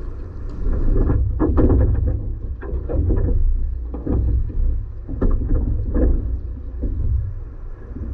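Rowing boat under way during a 500 m piece: a steady low rumble with a rhythmic run of stroke noises about once a second.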